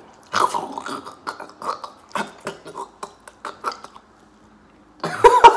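Close-up eating sounds: pizza being chewed, with many short wet mouth clicks. A loud burst of voice comes about five seconds in.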